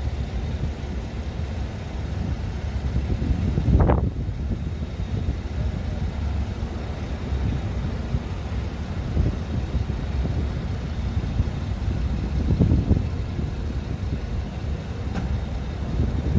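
Microfiber cloth rubbing over an aluminium alloy wheel, over a steady low rumble, with louder bumps about four seconds in, around thirteen seconds and at the end.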